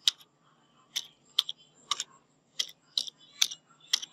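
Computer keyboard keystrokes: a password being typed key by key, about eight separate clicks at roughly half-second intervals.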